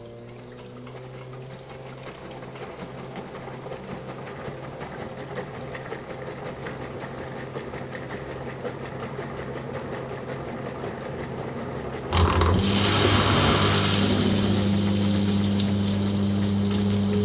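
Household washing machine running: a steady motor hum with faint ticking that slowly grows louder. About twelve seconds in, a much louder steady hum sets in abruptly along with a rush of water.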